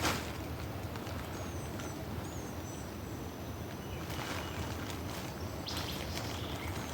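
Outdoor river ambience: a steady low rumble with a few faint, short, high bird chirps about a second and a half in, and two brief rushes of noise later on.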